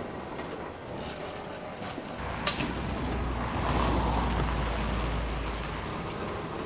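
Electric lawn tractor pushing a load of gravel with a front plow blade: its drive running, with gravel scraping and shifting ahead of the blade. The sound grows louder about two seconds in as the blade bites into the pile, with one sharp click shortly after.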